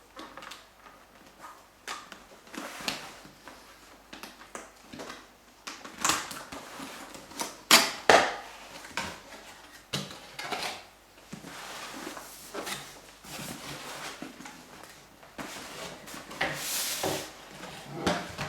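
Cardboard camera-box packaging being handled and opened: irregular rustling and scraping with soft knocks, the loudest scrapes about six and eight seconds in and again near the end.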